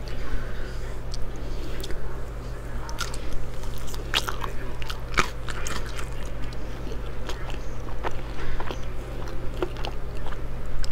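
Close-up eating sounds of a person chewing sushi rolls: irregular crisp crunches and wet mouth clicks, with no talking.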